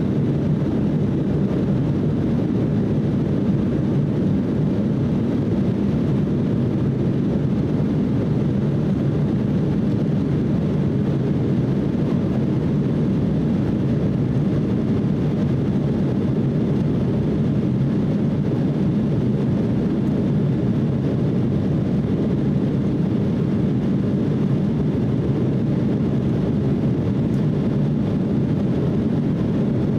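Steady cabin noise inside an Embraer E170 climbing out after takeoff: an even, low rush from its two CF34 turbofan engines and the air streaming past the fuselage, heard from a seat beside the wing, with no change in pitch or level.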